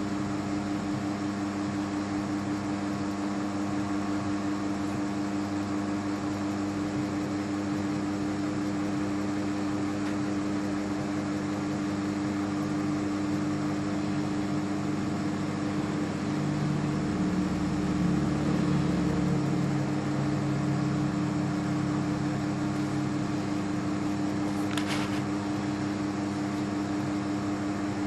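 Steady mechanical hum with several constant tones, swelling a little in the low end for a few seconds past the middle; a brief sharp click near the end.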